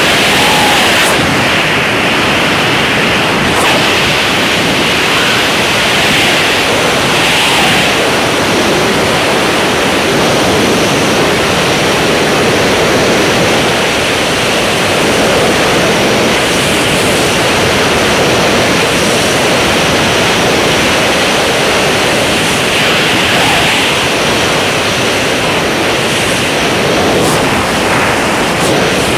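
Steady rush of freefall wind on a skydiver's camera microphone.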